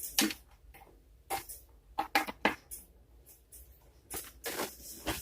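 A string of light clicks and knocks, about eight in all, from hands handling the reassembled power bank and its charging plug while it is tested for charging.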